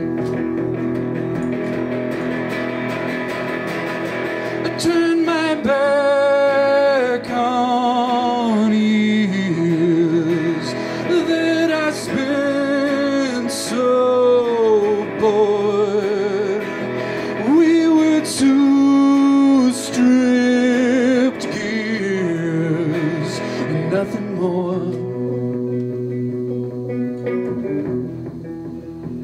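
Live solo electric guitar song played through a small amp, with a melody of held, wavering notes that slide down at their ends carrying over the guitar through the middle, thinning out near the end.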